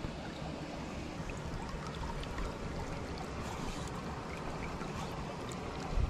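Shallow mountain stream running steadily, a continuous even rush of water with scattered faint ticks of small splashes.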